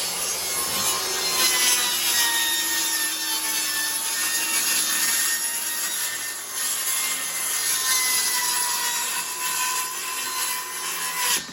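Saw cutting through a wooden board in one long continuous cut, a steady loud noise that stops abruptly near the end.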